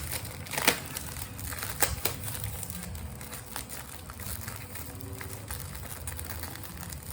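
Crinkling and crackling of a snack packet being handled, with a few sharp clicks in the first two seconds.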